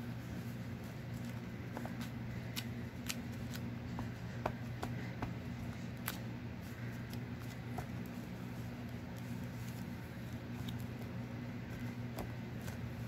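Paper pieces being handled and pressed down onto a journal page: soft rustling with a scattering of light ticks and taps, over a steady low hum.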